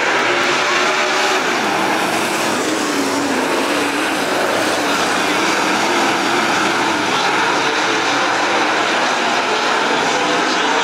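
A pack of dirt-track race cars running laps together, their engines blending into a steady, loud drone that wavers slightly in pitch.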